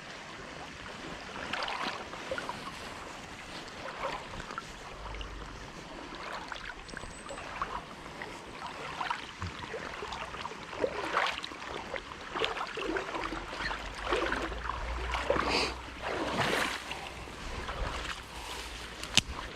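Legs wading through shallow creek water: irregular swishing and splashing steps. A low rumble comes and goes.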